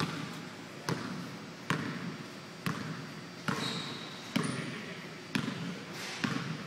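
Basketball being dribbled on a hardwood gym floor, a little over one bounce a second, each bounce echoing briefly in the hall.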